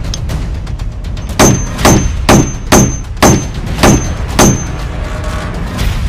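Seven sharp hammer blows on a nail, two or so a second, each with a brief high metallic ring, over background music.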